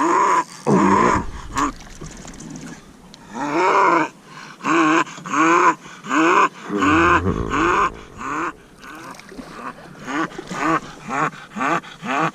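A bulldog vocalising in a long series of short whining yowls, each rising and falling in pitch, coming quicker near the end. Two brief low rumbles are heard, about a second in and again around seven seconds.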